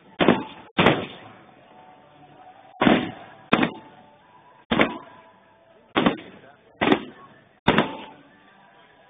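Fireworks shells bursting in a display: eight sharp bangs at uneven intervals of half a second to two seconds, each dying away in a short rumbling echo.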